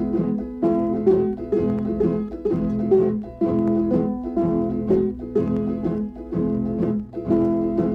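Instrumental music from a plucked-string ensemble of guitars and mandolin-like instruments, playing a hymn tune with a steady beat of plucked notes.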